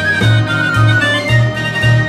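Background music: a melody over a bass line with notes about twice a second.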